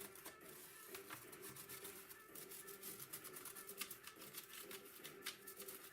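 Faint, scattered light clicks and ticks of small plastic keyboard parts being handled, over a faint steady hum.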